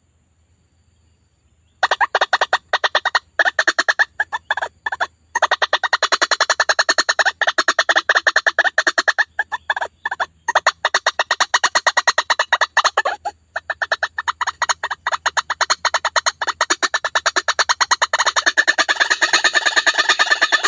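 White-breasted waterhen (ruak-ruak) calls from a bird-lure recording: silent at first, then about two seconds in a fast, unbroken run of repeated notes, several a second with brief gaps, running together more densely near the end.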